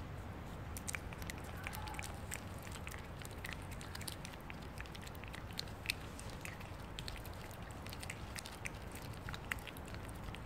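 A calico cat licking a squeeze-tube lickable treat: a run of small, irregular licking clicks and smacks, several a second, over a low steady rumble.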